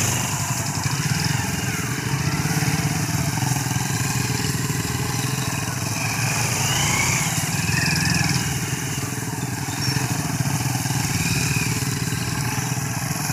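Motorcycle engines running steadily as the bikes are ridden over dried sesame plants spread on the ground to thresh them.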